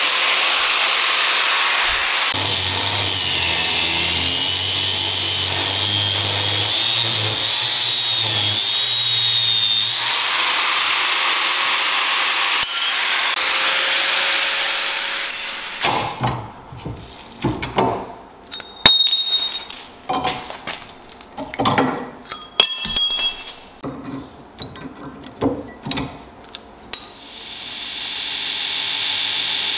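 Angle grinder with a thin cutting disc slicing through spring steel: a steady hiss with a high whine that wavers and sags under load. About halfway through it stops and gives way to irregular metal knocks and clanks as the steel blank and clamps are handled. Near the end a steady machine noise fades back in.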